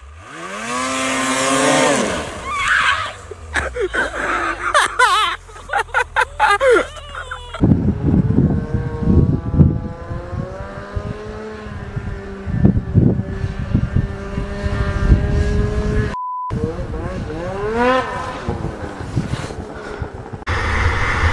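Snowmobile engines revving and running across a string of short clips: the pitch climbs sharply as the throttle opens at the start, and a run of sharp knocks and clatter follows. A steadier engine drone with scattered thumps comes next, broken about two-thirds through by a short censor bleep.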